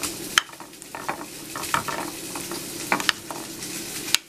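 A fork mashing ripe avocado in a glass baking dish: soft squishing, with irregular clicks and scrapes as the fork tines hit the glass.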